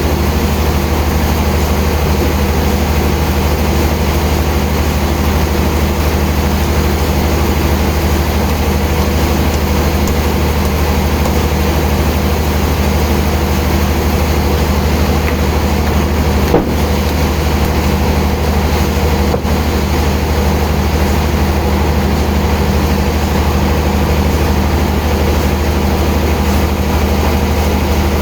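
Heavy sawmill machinery running with a steady low hum and even mechanical noise, with one brief click about two-thirds of the way through.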